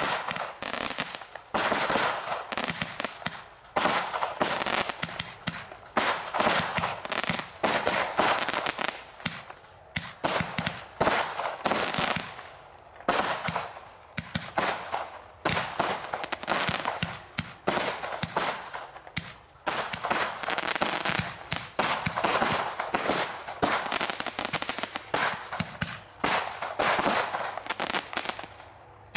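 Multi-shot firework barrage firing shot after shot: sharp bangs and crackling in quick clusters, with short pauses between the volleys.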